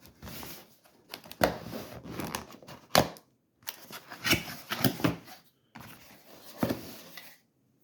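Packaging being handled and opened during an unboxing: cardboard and plastic rustling, with several sharp clicks and knocks, and a brief pause a little past three seconds in and again near the end.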